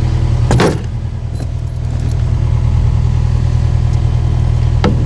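Engine idling steadily, with a sharp metallic clank about half a second in and another near the end.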